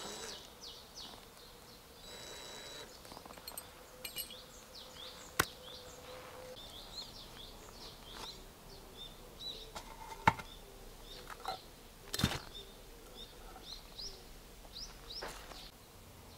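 Small birds chirping repeatedly in the background of outdoor garden work, with three sharp knocks from tools or materials being handled. A cordless drill whines briefly about two seconds in.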